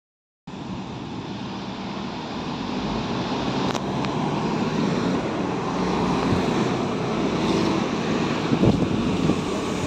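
Street traffic noise as a Trolza Megapolis trolleybus draws up to a stop, growing slowly louder as it comes close, with a brief click about four seconds in.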